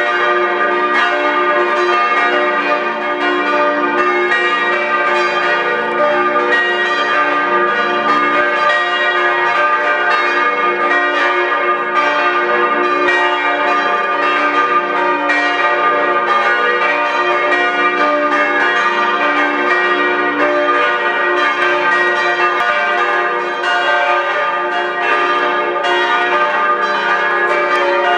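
Several church bells of a Catholic church tower ringing together in a full peal, strikes of different pitches overlapping continuously with no break.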